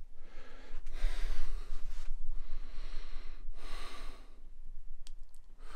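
A man breathing close to the microphone: about three long, hissy breaths, with a low handling rumble and a few light clicks.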